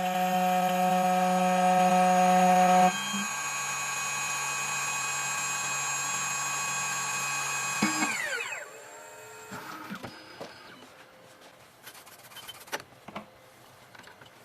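CNC key cutting machine's spindle motor running with a steady whine while cutting the second side of a copper HU83 key blank. The whine gets quieter about three seconds in, then the motor winds down with a falling pitch about eight seconds in, followed by a few faint clicks.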